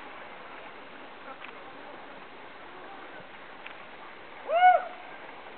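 Steady outdoor wash of water and wind noise, with one short high call, rising then falling in pitch, about four and a half seconds in.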